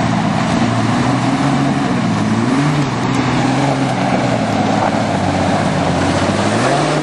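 Jeep Wrangler's engine working under load as it climbs over rocks, its note rising and falling with the throttle.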